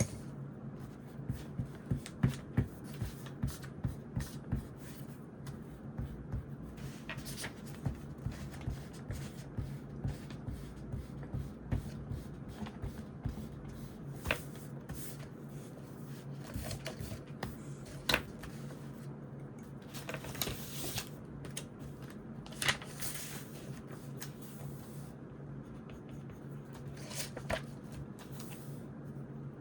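Writing on notebook paper: irregular taps and clicks of the writing tool with short scratchy rustles of paper, a cluster of louder rustles around twenty seconds in, over a steady low hum.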